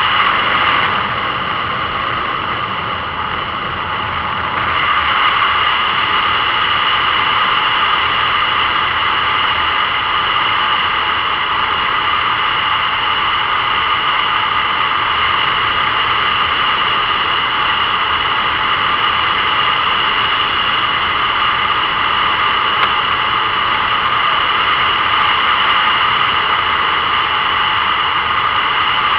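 Steady wind and road rush from a motorcycle at cruising speed, heard through the bike-mounted camera, with a high, even whine running through it. It softens for a few seconds about a second in, then comes back up.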